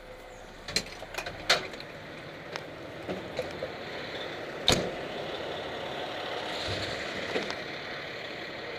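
Fire engine running steadily, with a few short clicks and knocks in the first two seconds and one sharp bang a little under five seconds in.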